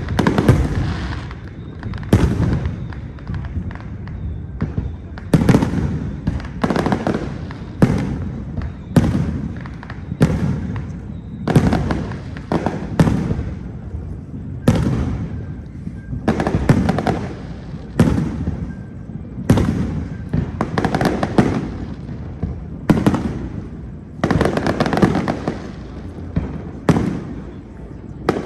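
Aerial fireworks shells bursting in a continuous barrage, sharp bangs about one to two a second, each trailing off in a rumbling echo.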